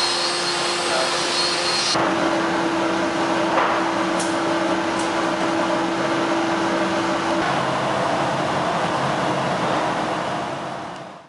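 Workshop woodworking machinery running steadily: a constant rushing noise under a steady hum. The sound changes abruptly about two seconds in and again about seven seconds in, then fades out near the end.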